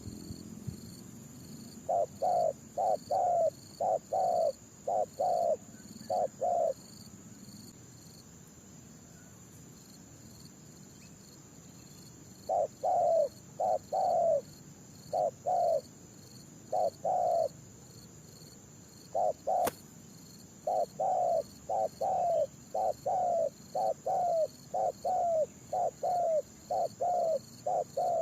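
Spotted doves cooing in runs of short, low, repeated coo notes, three runs in all with gaps between. A steady high insect whine runs behind them.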